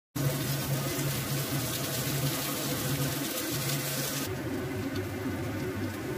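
Soup boiling hard in a lidded pot: a steady bubbling hiss that cuts off abruptly about four seconds in.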